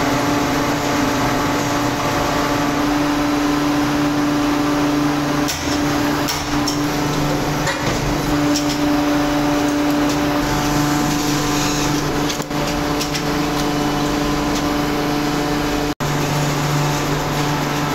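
Steady drone of die-casting machinery running, a constant hum with a noisy mechanical haze, with a few light metallic clinks and taps in the middle. The sound drops out for an instant near the end.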